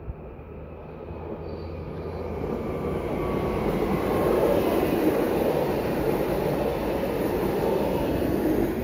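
Stadler FLIRT electric multiple unit running by on the rails, growing louder over the first few seconds, then staying loud.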